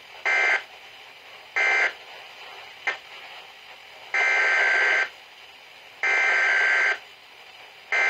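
Weather radio speaker playing the digital data tones of a Weatheradio Canada alert (SAME code): two short bursts, then three longer bursts of nearly a second each, about a second apart, with faint radio hiss between.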